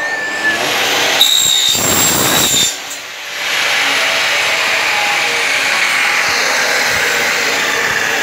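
Power saw cutting an aluminium window profile: a shrill, whining cut for about two and a half seconds, a short dip, then the saw running steadily through the metal again.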